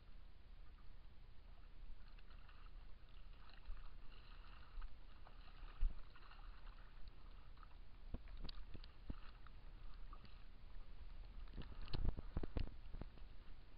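Water sloshing and lapping against a small aluminium boat drifting without its motor, under a steady low rumble. A few sharp knocks come about six and eight seconds in, and a louder cluster near twelve seconds.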